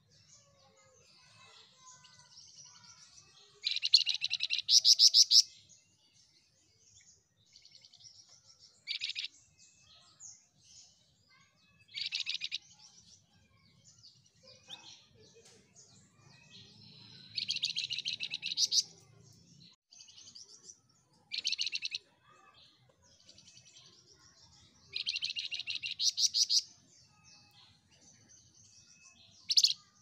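A caged flamboyan songbird singing in loud bursts of fast, chattering trills every few seconds, the longest about two seconds, with softer twittering in between.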